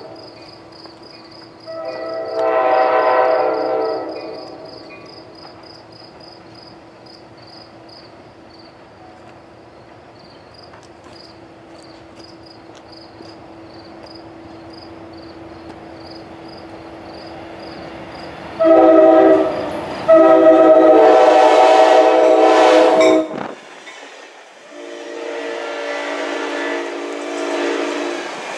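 Amtrak F40PH diesel locomotive's air horn sounding as the train approaches and runs through the station. There is one long blast about two seconds in, then a short and a long blast near the end, and a last blast lower in pitch as the locomotive goes by. Wheels and cars rumble past at the end.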